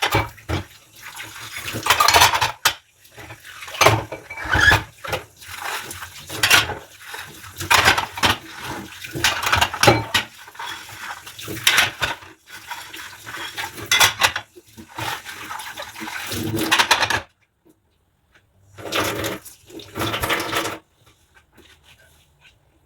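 Dishes and cutlery clattering and being scrubbed as they are washed by hand in a sink, with some water. The handling stops about seventeen seconds in, returns briefly a couple of seconds later, then goes quiet.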